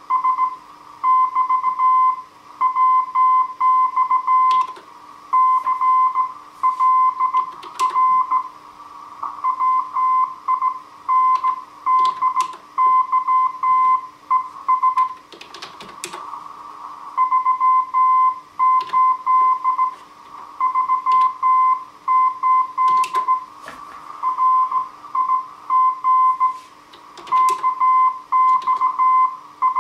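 Slow-speed Morse code from a Heathkit HW-101 transceiver: a steady tone keyed on and off in dots and dashes. Scattered clicks and hiss run under it, and the keying stops for about two seconds halfway through, leaving only noise.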